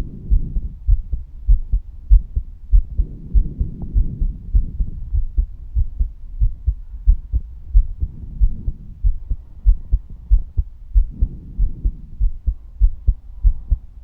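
A woman's heartbeat: a steady run of low, dull thumps. A soft swishing noise swells and fades behind them every few seconds.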